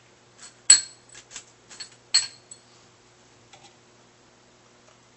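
Small steel washers and bolts clinking as they are handled and fitted by hand: a string of sharp metallic clinks, each with a brief ring. The two loudest come just under a second in and about two seconds in, with lighter taps between and a couple more near the middle.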